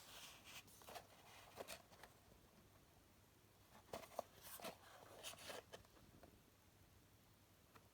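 Faint rustles and light taps of a paper-and-card exploding box being handled, in a few short scattered scrapes, the sharpest about four seconds in.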